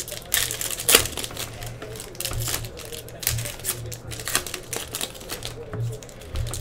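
Foil wrappers of Donruss football card packs being torn open and crinkled by hand: a quick, uneven run of crackles and rustles, sharpest about a second in.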